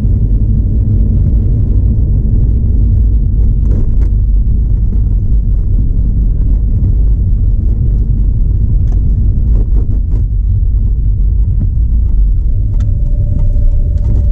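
Mazda RX-8 on the move: a steady low rumble of engine and road noise, with a few light clicks and a steady hum that comes in near the end.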